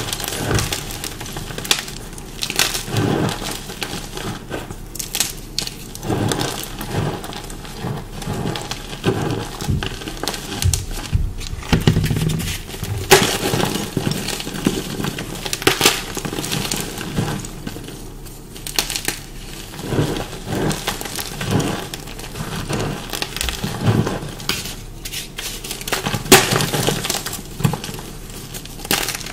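Dyed, pasted blocks of chalk being crunched close to the microphone: repeated, irregular crisp crunches and crumbling, with a few louder cracks. The chalk has turned crunchy and dusty rather than soft.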